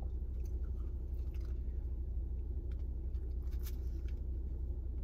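A man chewing and biting into a steak, egg and cheese bagel sandwich, with faint scattered mouth clicks. A steady low hum runs underneath and is the loudest thing heard.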